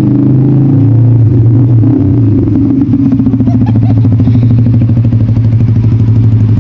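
Yamaha R-series sport motorcycles riding slowly past at low revs, their engines running steadily. From about three seconds in, the nearest bike's engine comes through as a rapid, even putter.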